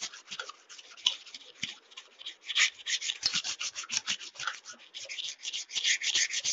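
A sharpening stone rubbed rapidly back and forth along the blade of a large, old pair of scissors, wetted with water: a rasping scrape of several strokes a second as the rusted, blunt blade is sharpened.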